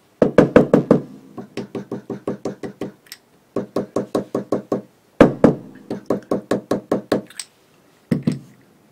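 Metal fly-tying hair stacker rapped repeatedly on the bench in three quick runs of sharp knocks, about six a second, then two more near the end: evening the tips of deer body hair for a muddler head.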